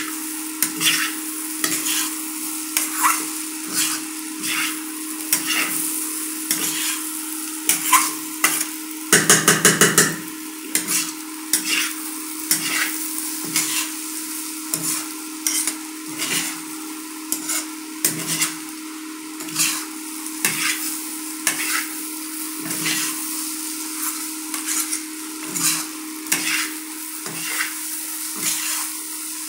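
Thin potato strips frying in oil with a steady sizzle while a spatula stirs and scrapes them around the pan, knocking against it every half second or so. About nine seconds in comes a quick run of rapid scrapes. A steady low hum runs underneath.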